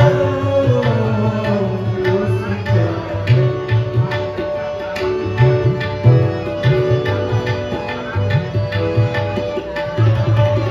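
Instrumental interlude of a ghazal. A tabla plays a steady rhythm with deep booming bass-drum strokes under held harmonium and keyboard-synth notes. A melodic line slides downward in the first couple of seconds.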